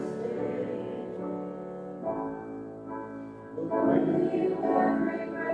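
Congregational worship song, voices with instrumental accompaniment, sustained notes that fall quieter in the middle and swell again about two-thirds of the way through.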